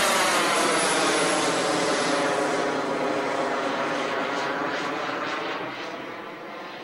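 Engine noise of a military jet flying past overhead, loud at first and then fading over the last couple of seconds as it pulls away.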